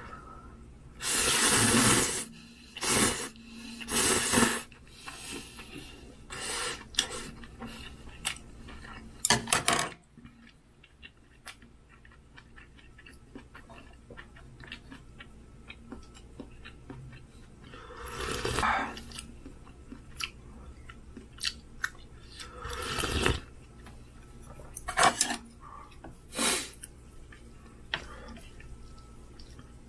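Ramyun noodles being stirred and lifted in a thin aluminium pot with wooden chopsticks and a wooden spoon: light clicks of wood on the pot and wet noodle sounds. A few louder, wet bursts of about a second each stand out, the loudest near the start.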